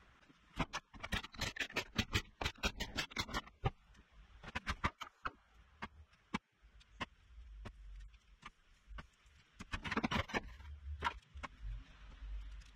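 Metal bolts and nuts clinking and clattering as they are handled on a workbench: quick runs of sharp clicks about a second in, scattered single clicks after, and a denser clatter about ten seconds in.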